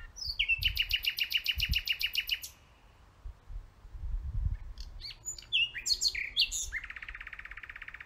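Nightingale singing: a fast run of about fifteen repeated notes, a short pause, several varied whistled phrases, then a rapid trill starting near the end.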